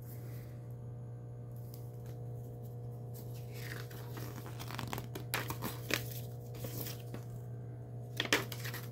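Folded paper insert being pulled out and unfolded, rustling and crinkling in short bursts, most about halfway through and again near the end, over a faint steady low hum.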